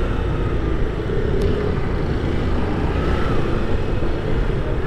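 Honda CG 160 Titan's single-cylinder engine running steadily at low road speed while the bike moves, mixed with a low wind rumble on the microphone.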